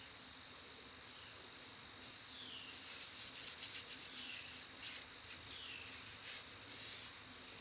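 Insects chirring steadily at a high pitch. Faint rustles and clicks come in from about two seconds in, along with three short falling chirps.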